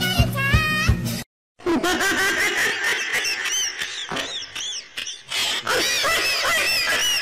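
Music with a steady beat and singing cuts off about a second in. After a brief gap comes high-pitched, squeaky laughter: many short rising-and-falling squeals.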